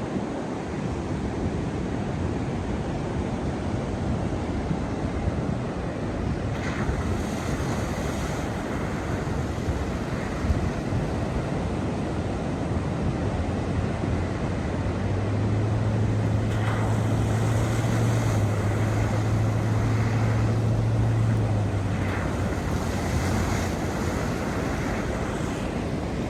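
Wind rushing on the microphone over steady surf noise, with a Jeep's engine humming steadily for several seconds in the second half.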